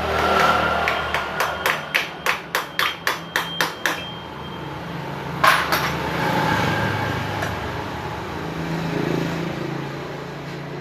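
A hammer striking metal: about a dozen quick blows, roughly three a second, with a ringing tone, then a single louder blow about a second and a half later.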